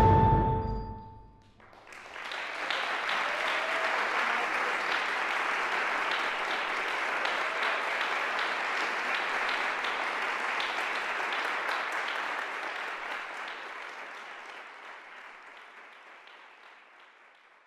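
The percussion ensemble's last notes ring out and die away, then audience applause begins about two seconds in, holds steady, and slowly fades out near the end.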